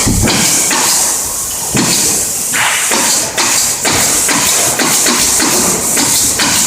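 Pneumatic staple gun firing staples into wood in quick, uneven succession, about two or three sharp shots a second, over a steady high hiss.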